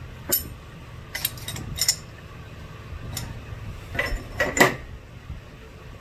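Small steel machine tooling being handled on a milling machine: a handful of sharp metal clinks and taps, each with a short ring, scattered unevenly, the loudest pair about four and a half seconds in.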